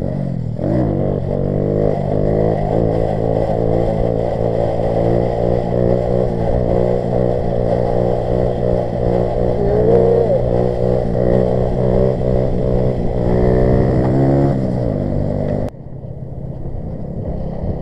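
Grom-clone minibike's small single-cylinder four-stroke engine revving hard through a sit-down wheelie, the revs rising and falling over and over as the throttle is worked. Near the end the engine sound drops off suddenly.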